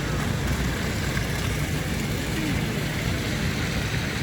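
Steady city street noise with a low engine hum under a wash of broad noise and no distinct events.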